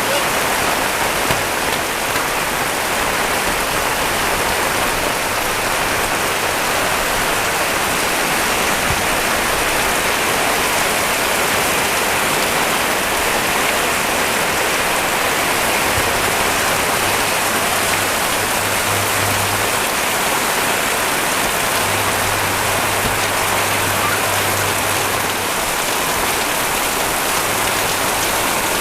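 Heavy rain pouring steadily onto surfaces, an even unbroken hiss. A low hum comes and goes in the second half.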